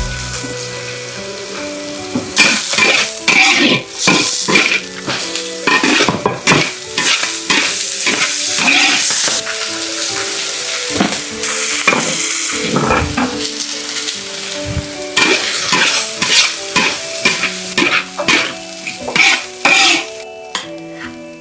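Food sizzling as it is stir-fried in a pan, with a spatula scraping and clattering against the pan in quick, irregular strokes.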